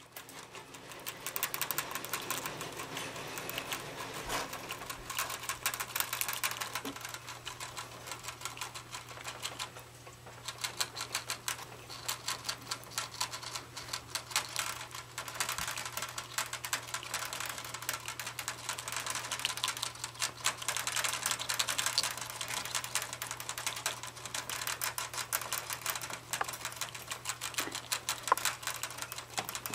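Pet rats licking at a water bottle's metal sipper tube, several drinking at once: a fast, continuous patter of sharp clicks, with a short lull about ten seconds in.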